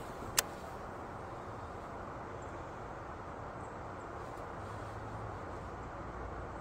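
A single sharp click about half a second in, typical of a spinning reel's bail snapping shut as the handle is turned to start the retrieve. Under it, a steady low wash of water.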